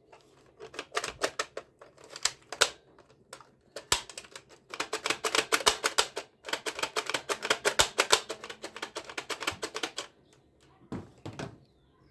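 Plastic toy gun clicking: a few separate clicks, then a fast run of mechanical clicks lasting several seconds with a short break partway through, as if the trigger or firing mechanism is worked over and over.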